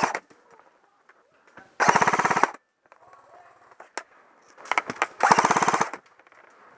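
Airsoft gun firing rapid full-auto bursts: one burst about two seconds in and two more close together around five seconds, with a single sharp snap in between.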